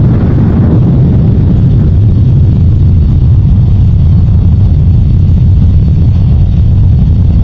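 Loud, steady low rumble with a noisy hiss above it, unbroken and near full volume.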